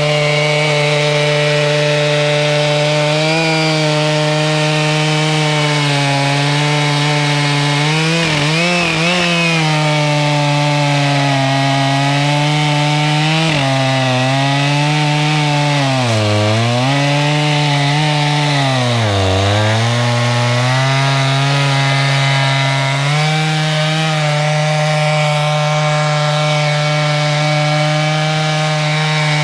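Two-stroke chainsaw running at high revs, ripping lengthwise through a red oak log in a chainsaw mill. Its pitch sags briefly three times in the middle as the chain bogs under the load of the cut, then recovers.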